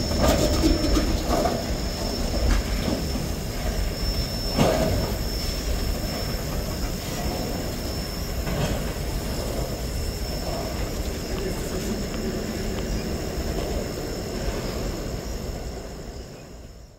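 Freight train's tank cars rolling past on the rails: a steady low rumble with sharp clicks of wheels over rail joints in the first few seconds, growing fainter as the end of the train moves away. The sound fades out and cuts to silence right at the end.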